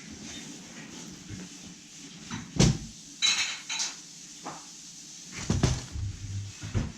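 Hard objects being handled: a loud knock, a short scraping clatter, then a few more knocks near the end.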